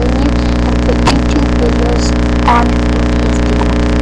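Loud, steady electrical mains hum with many evenly spaced overtones, with a faint, brief voice-like sound now and then and a single click about a second in.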